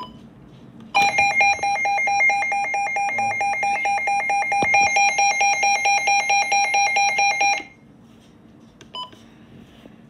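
Midland weather radio's alert alarm sounding in test mode: a loud, rapidly pulsing beeping tone that starts about a second in, lasts about six and a half seconds and cuts off suddenly. A single short key beep comes about nine seconds in.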